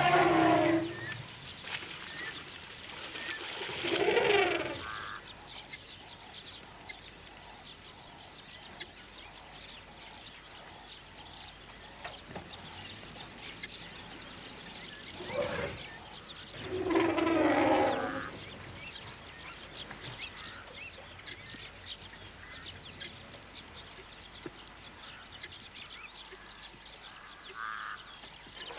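African elephants trumpeting in loud blasts, about four seconds in and again around seventeen seconds, with a shorter call near fifteen seconds, warning off lions at the waterhole. Birds chirp throughout in the background.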